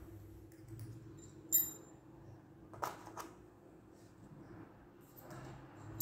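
Small metal parts being handled on a truck cylinder head: a bright, ringing metallic clink about one and a half seconds in, two short knocks around three seconds, and another ringing clink near the end.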